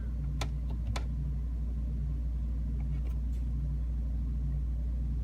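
Steady low background hum, with a few light clicks: two close together about half a second and a second in, and a couple more around three seconds in.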